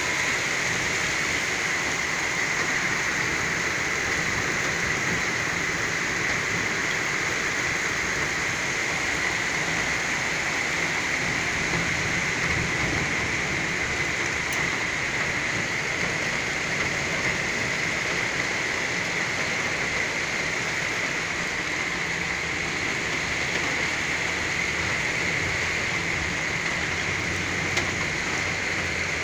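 Heavy rain pouring steadily during a thunderstorm, an even, unbroken hiss.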